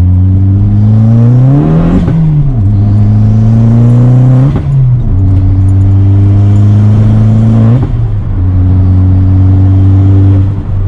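Fiat Grande Punto Abarth's 1.4 T-Jet turbocharged four-cylinder engine running. It climbs in revs over the first couple of seconds and drops back, then holds steady, with two quick revs blips about halfway through and again later on.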